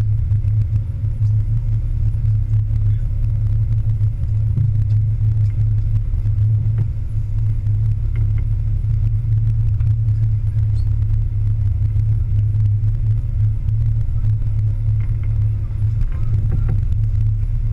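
Sportfishing boat's inboard engines running with a steady low drone.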